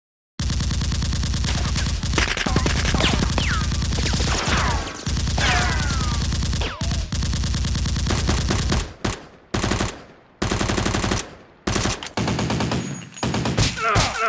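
Automatic gunfire sound effect, most likely dubbed over the Nerf action, starting suddenly out of dead silence. It runs as one long unbroken burst with a few falling whines over it, then breaks into several shorter bursts over the last few seconds.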